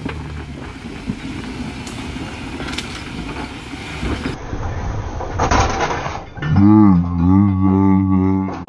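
Rumbling, noisy vehicle-trail sound with scattered knocks, then after an abrupt cut a loud, long, low call that wavers up and down in pitch for about two seconds near the end.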